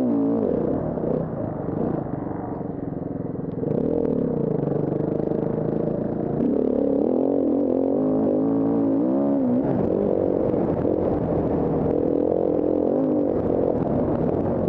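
KTM 350 Six Days enduro bike's single-cylinder four-stroke engine, heard up close from the bike, revving up and down through gear changes as it is ridden hard on a dirt track. It eases off about one to three seconds in, then climbs again and is held at high revs from about ten seconds on.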